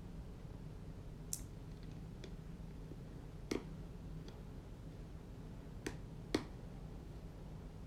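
Four short, sharp clicks, scattered a couple of seconds apart, the last one the loudest, over a faint steady low hum.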